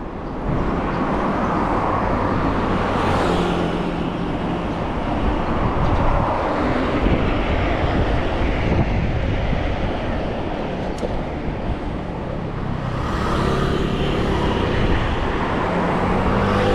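Steady road traffic on a busy highway, vehicles passing close by, with louder passes about three seconds in and again around thirteen seconds in.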